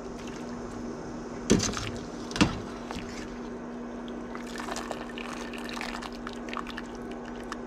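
Hot water in a stainless pot sloshing and dripping as a wire skimmer scoops out a batch of blanched pepper leaves. There are two sharp knocks about a second and a half and two and a half seconds in, and splashing and dripping a little past the middle, over a steady low hum.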